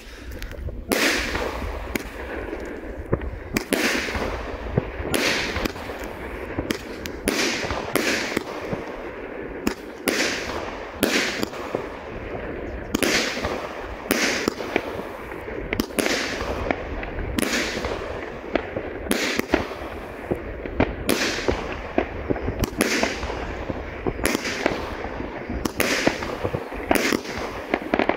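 Pyromax Ventus, a 19-shot 30 mm firework battery, firing shell after shell. It is a steady string of sharp bangs as the shells launch and burst overhead, roughly one every second.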